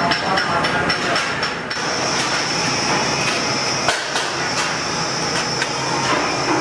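Sheet-metal workshop noise: quick metallic knocks, several a second for the first couple of seconds and then sparser, over a steady high-pitched machine whine.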